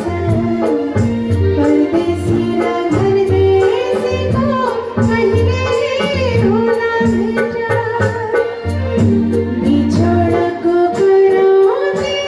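A woman singing a Nepali song live into a microphone over backing music with a steady, even beat.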